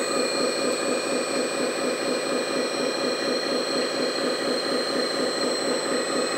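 Hydraulic pump of a 1/14 LESU 8x8 RC dump truck running with a steady whine as the tipped dump bed is lowered back onto the chassis, cutting off right at the end. Underneath is a steady, pulsing engine-like drone.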